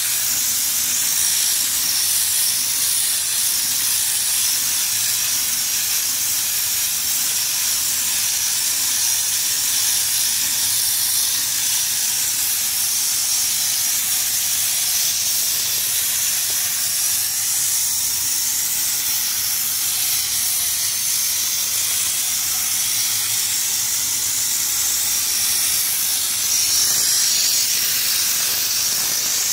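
Compressed-air bed-liner spray gun with a screw-on bottle spraying Raptor liner: a steady, high hiss of air and atomised coating.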